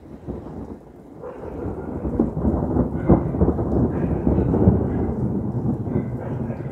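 Thunder rolling after a lightning flash: a long low rumble with crackle that builds about a second in and is loudest through the middle, over steady rain.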